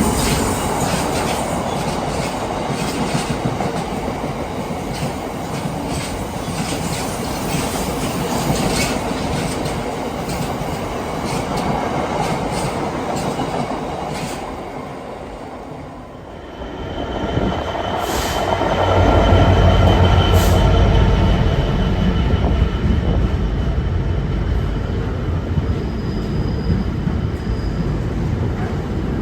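Train on the line, running with wheel-on-rail noise and sharp clicks, fading away about halfway through. Then a second train's sound builds up, with a deep rumble and a thin steady high squeal.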